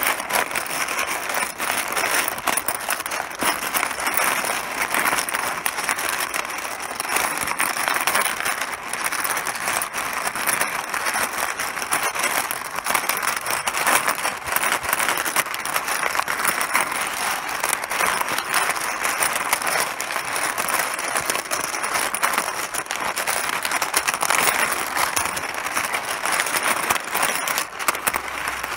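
Mahjong pieces clattering against each other, a continuous dense rattle of many small hard clicks.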